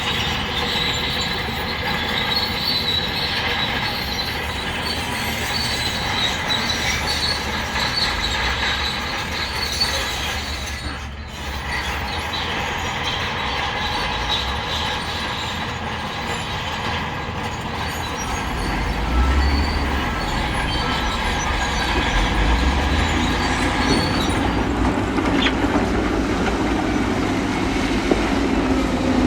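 Crawler bulldozer working, its steel tracks giving a steady high squeal and clatter over the diesel engine's rumble, which gets heavier partway through.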